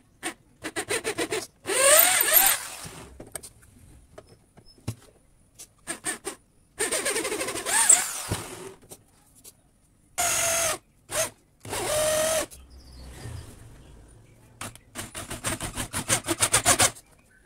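A drill bit boring into a hardwood block, the drill run in repeated short bursts and longer runs of about a second, with a squealing pitch as the bit cuts.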